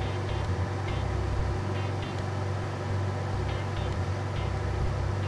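Steady hum of a clean bench's air blower, with a few faint light clicks from small hard-drive parts being handled.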